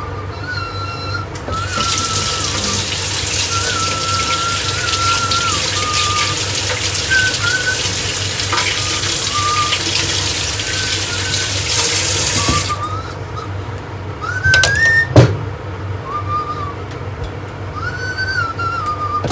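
Water running from a tap for about ten seconds, shut off, while a person whistles a wandering tune. A sharp knock comes a couple of seconds after the water stops and is the loudest sound.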